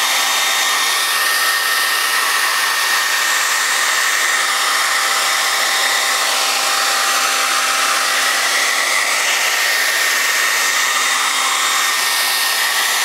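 Old handheld hair dryer running steadily, a constant rush of air with a faint high whine, blowing hot air onto a tablet's glass to soften the adhesive underneath.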